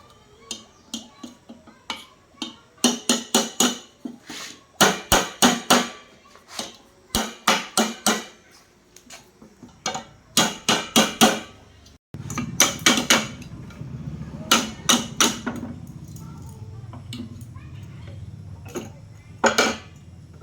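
Hammer striking metal in quick runs of three to five ringing blows, typical of knocking apart a pump motor's housing or stator. From about twelve seconds in, a steady low hum runs underneath the blows.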